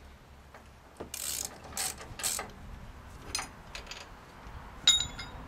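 Hand ratchet on a ball joint press clicking in three short rasping bursts, with a few small ticks, then one sharp ringing metal clink near the end.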